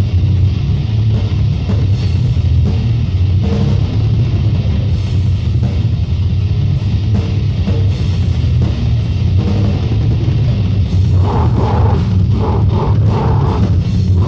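Lo-fi extreme-metal band demo recording: heavy, distorted down-tuned guitar over a busy drum kit, dense and bass-heavy. About eleven seconds in the part turns choppier and more rhythmic.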